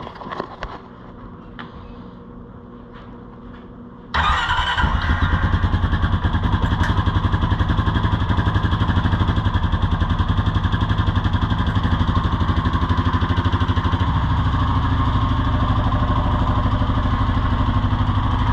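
Honda Rancher ATV engine starting up about four seconds in and then running with a steady pulsing beat, settling a little lower toward idle near the end.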